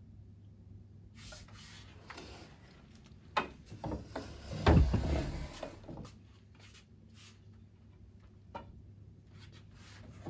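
Clothes rustling and a chair shifting as a person stands up, with a loud low thump about halfway through. A few light knocks follow as long wooden sticks are handled.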